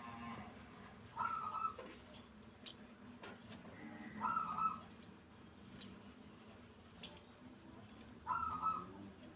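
Small birds calling: three short, sharp, high-pitched chirps, the loudest sounds here, and between them a lower, rougher call of about half a second, repeated three times roughly every three and a half seconds.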